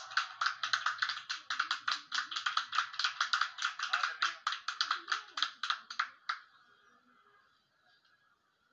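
A crowd clapping fast and cheering, which stops about six seconds in and leaves only a faint murmur of voices.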